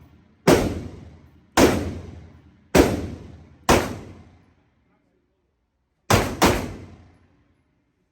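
Gunshots at a shooting range, each sharp crack followed by a short echoing tail. Four shots come about a second apart, then after a pause two more fire in quick succession.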